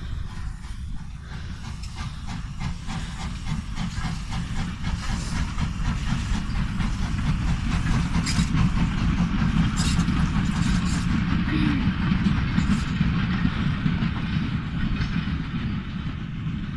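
Adams Class O2 0-4-4 tank steam locomotive working a goods train past, its regular exhaust beats and steam hiss growing louder as it draws level, then the goods wagons and brake van rolling by with a clatter over the rail joints, the sound easing near the end.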